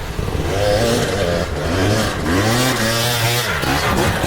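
Two-stroke dirt bike engine revving, its pitch rising and falling several times as the throttle is worked.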